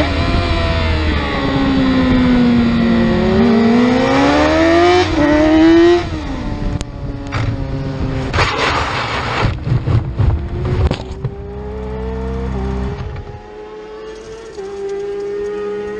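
Yamaha R6 inline-four sport bike engine revving hard, its note dipping then climbing, then cutting off suddenly about six seconds in as the bike crashes. A few seconds of loud scraping and tumbling follow as the bike slides off the track, then a quieter steady engine note carries on.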